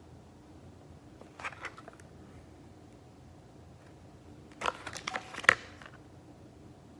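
Hands handling a red plastic retractable dog leash and its paper tag: a couple of light clicks about a second and a half in, then a quick cluster of clicks and rustles about five seconds in.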